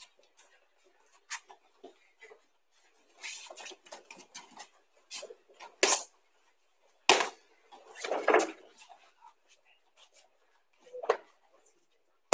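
Irregular knocks, thuds and rustles as a homemade judo throwing dummy is swung up and forward through repeated uchi mata entries, with bare feet stepping and turning on the tatami mats. The loudest knocks come about six and seven seconds in, followed by a longer scuffle.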